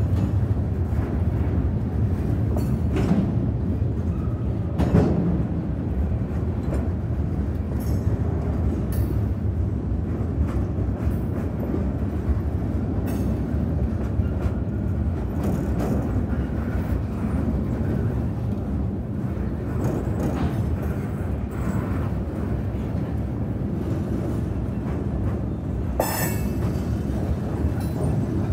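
Freight cars of a passing train rolling over a grade crossing: a steady low rumble of wheels on rail, with irregular clanks and clicks from the wheels and couplers.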